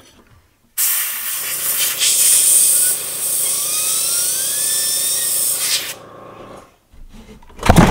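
Airbrush blowing a jet of compressed air into a 3D printer's extruder to clean it out: a steady hiss that starts about a second in and cuts off about six seconds in, with a faint rising whine inside it.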